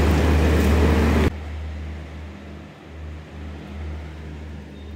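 Garib Rath Express passenger coaches rolling past along the platform as the train pulls out, a loud steady rumble. About a second in it cuts off abruptly, leaving a much quieter low hum as the train moves away.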